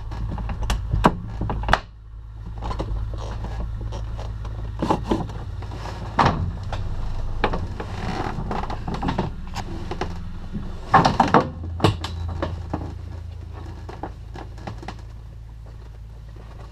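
Steady low hum of the tow plane's engine, heard from inside a glider's closed cockpit, with scattered sharp clicks and knocks from the cockpit; a cluster of louder knocks comes about eleven seconds in.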